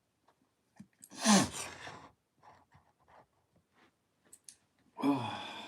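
A person's loud, breathy sigh, falling in pitch, about a second in, followed by a few faint clicks and taps; a voice starts up near the end.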